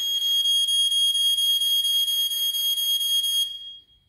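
Carbon monoxide alarm sounding one steady, high-pitched tone, set off by about 290 ppm of carbon monoxide from a petrol generator's exhaust. The tone cuts off about three and a half seconds in while the alarm's button is pressed.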